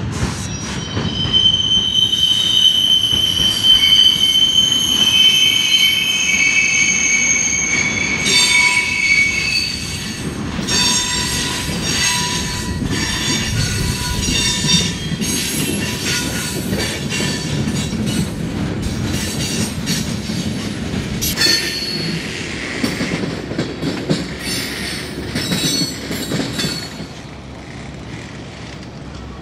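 Steel freight-car wheels rolling through a hump yard: a long, steady, high-pitched squeal for the first several seconds, then a run of clanks and knocks, easing off near the end.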